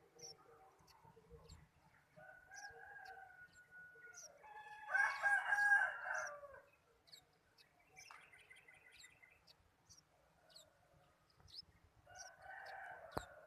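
Rooster crowing: a long crow peaks about five seconds in, with a fainter crow before it and another near the end. Small birds chirp in short high notes throughout.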